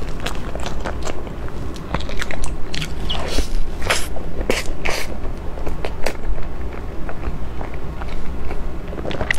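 Close-miked mouth sounds of a person biting and chewing a soft mango cream crepe cake: smacks and clicks at an uneven pace.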